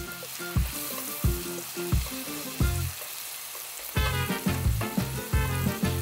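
King oyster mushroom slices sizzling in a soy glaze in a wok as they are turned with chopsticks, under background music with a steady beat. The music grows fuller, with a bass line, about two-thirds of the way through.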